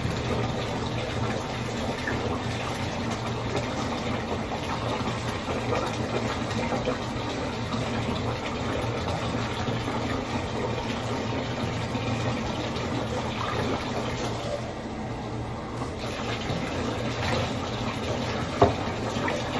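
Water running steadily in a bathtub while a wet dog is rinsed, water poured over it from a plastic cup. A single sharp knock near the end.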